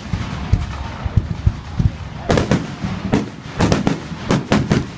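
Aerial firework shells bursting. There are a few dull low booms in the first two seconds, then a quick series of sharp bangs from about two seconds in until near the end.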